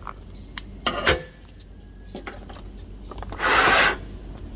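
Scissors snipping through a foil coffee bag, a few sharp cuts in the first second or so, then a loud crinkling rustle of the foil bag being pulled open and handled about three and a half seconds in.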